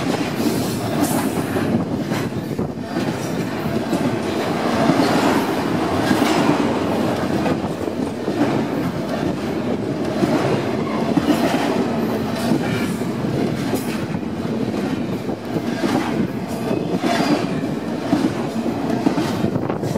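Double-stack container well cars of a long freight train rolling past close by: a steady rumble and clatter of steel wheels on rail, broken by frequent sharp clicks and clanks.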